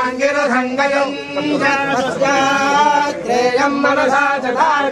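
Several men chanting Vedic mantras in Sanskrit in unison, a steady recitation on long held notes with short breaks between phrases.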